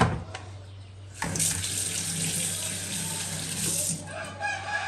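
Kitchen tap running water into a sink for about three seconds, starting about a second in, after a knock at the very start.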